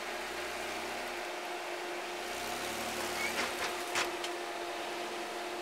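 Engine of a lifted 4x4 SUV running at low revs while crawling over boulders, its low note shifting as the throttle changes, with a few sharp knocks and scrapes about three to four seconds in.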